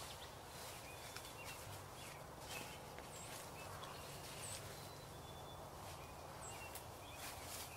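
Faint songbirds chirping now and then in the background, with a few soft rustles and ticks, over a quiet low hum.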